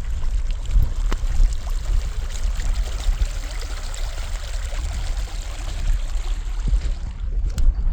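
Floodwater flowing, a steady rushing noise over a low rumble, with a few sharp clicks near the end.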